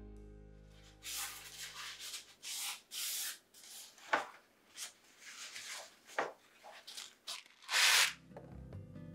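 A sheet of kitchen paper rustling and rubbing as hands lay it into a plastic sprouting tray and smooth it flat: a string of short brushing sounds, the loudest a little before the end.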